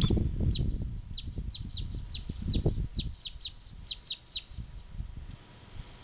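A grackle calling a quick series of about a dozen short, sharp notes that each slide downward, about three a second, stopping a little over four seconds in, over a low rumble.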